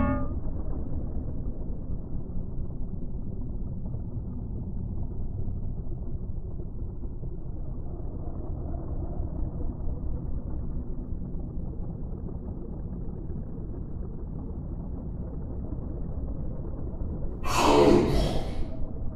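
Steady low underwater rumble, then a short, loud rush of noise about a second and a half before the end.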